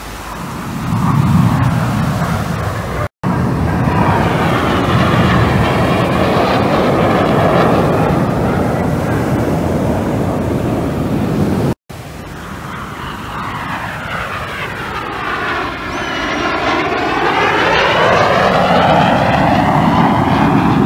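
BAE Hawk T1 jets of the Red Arrows flying past low, a loud jet noise that swells as they come over, with a sweeping rise and fall in pitch as one passes near the end. The sound breaks off for an instant twice.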